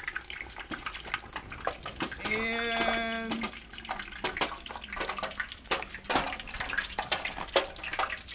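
Hot frying oil crackling and sizzling around a deep-fried turkey as it is lifted out of the fryer. A single held, voice-like tone about two seconds in.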